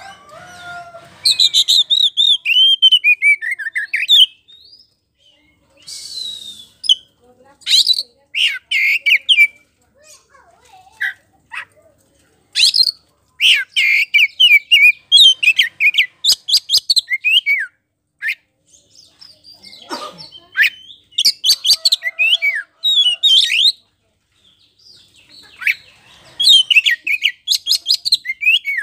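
Oriental magpie-robin (white-bellied 'kacer poci' form) singing loudly in bursts of a few seconds. Each burst is a rapid run of varied whistles, trills and chattering repeated notes, with short pauses between them.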